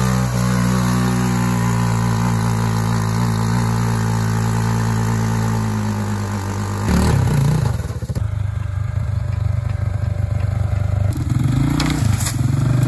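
Small off-road vehicle engine running at a steady speed, then changing its note abruptly about seven seconds in, dipping briefly, and running on more unevenly.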